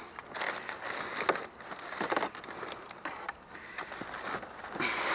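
Irregular rustling and a few sharp knocks and clicks of junk being handled and wire being pulled by hand.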